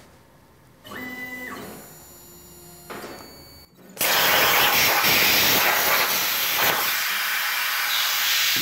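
CNC plasma table's stepper motors whine briefly as the gantry moves the torch into position. About four seconds in, the Hypertherm Powermax 30 XP plasma torch fires and cuts sheet steel with a loud, steady hiss at 300 inches per minute, a pass that does not sever the part.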